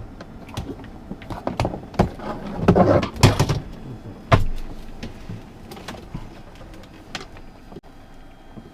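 Clicks, knocks and rustling of gear being handled in an aircraft cockpit, with a cluster of louder knocks about three seconds in and another sharp knock a little after four seconds, then fewer, fainter clicks.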